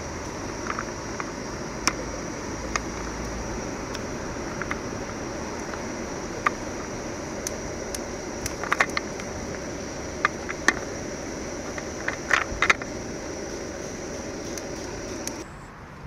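Shellfish cooking in a pot over a camp burner: a steady hiss with scattered sharp clicks and pops, several in quick clusters. The hiss drops off abruptly near the end.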